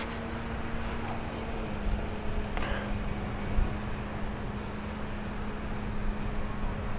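Steady hum of a small motor, dropping slightly in pitch about a second and a half in, under wind noise on the microphone.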